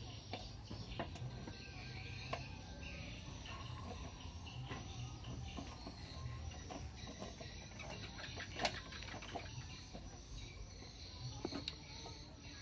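Small clicks and taps from a step-up converter board and its wires being handled, over faint birds chirping. The loudest click comes about eight and a half seconds in.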